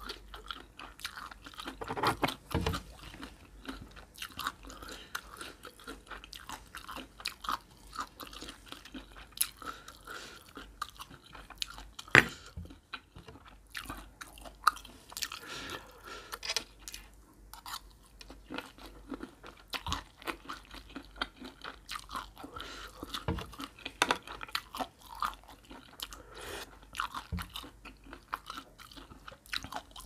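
Close-miked chewing and crunching of a spicy Thai horseshoe crab egg salad with shredded raw vegetables and sour mango: a steady run of wet, crisp bites and chews, with one sharp click about twelve seconds in.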